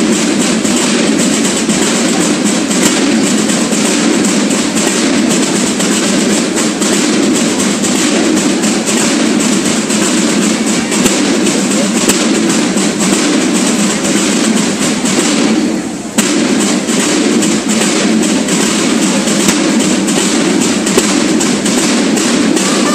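Banda de guerra, a Mexican drum and bugle corps, playing loudly with a dense stream of drum strokes. It breaks off briefly about sixteen seconds in, then carries on.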